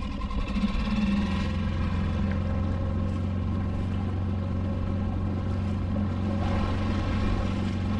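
Outboard motor of a small inflatable boat running steadily under way, settling to an even pitch about a second in, with water rushing along the hull.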